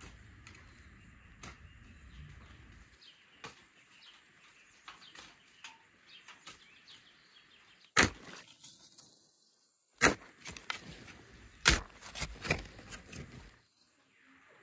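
Hand hoe chopping into garden soil among the plants: scattered light scrapes and clicks, then several sharp strikes a second or two apart in the second half.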